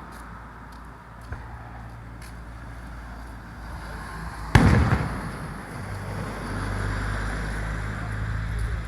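A firework shell bursting with a single loud boom about halfway through, its rumble echoing and dying away, after a few faint pops.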